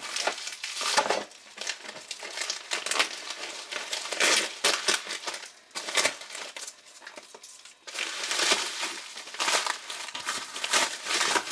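Parcel packaging being opened and unwrapped by hand, crinkling and rustling in irregular bursts with two short lulls.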